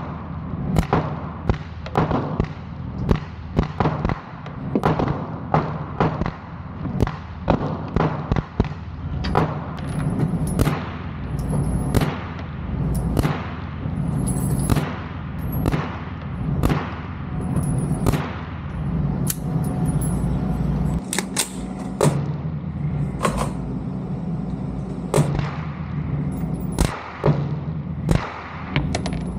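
A steady string of single 9mm carbine shots, about one or two a second, each ringing briefly in an indoor range. First comes a S&W Response pistol-calibre carbine fitted with a Dead Air Mojave 9 suppressor firing 147-grain rounds. About halfway through, an unsuppressed KelTec Sub-2000 Gen 3 firing 115-grain FMJ takes over.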